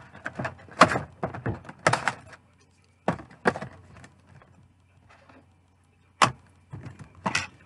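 Handling noises of items being packed back into a box and plastic packaging: a quick run of clicks, knocks and rustling over the first couple of seconds, then a few separate knocks with quiet gaps between them.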